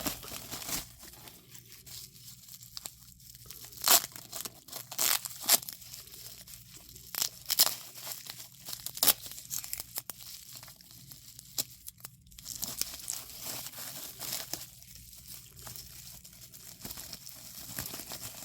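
Packaging being crinkled and torn open by hand to unwrap a pocket knife: irregular sharp crackles and rips, some louder snaps, with pauses between.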